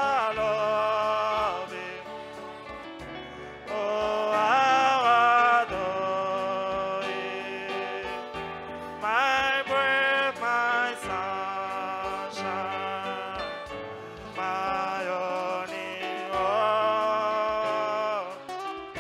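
Gospel praise-and-worship music: a lead voice sings long held notes that slide up into pitch, over instrumental backing with a steady low beat.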